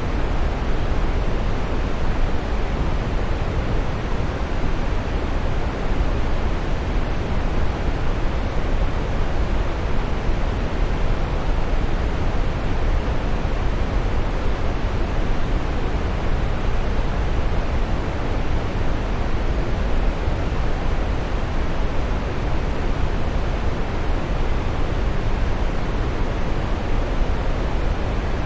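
Waterfall: water falling and crashing in a steady, unbroken rush, heaviest in the low end.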